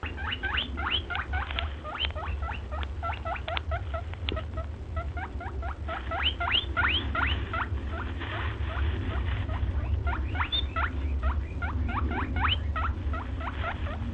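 Rapid run of high squeaks from a small animal, several a second, each a quick upward sweep, over a steady low hum.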